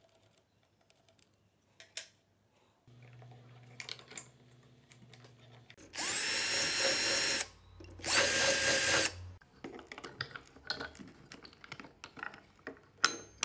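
Electric drill boring through a metal strip held in a bench vise, running in two bursts of about a second and a half and a second with a steady whine. Small clicks and knocks of handling come before and after, and there is a sharp click near the end.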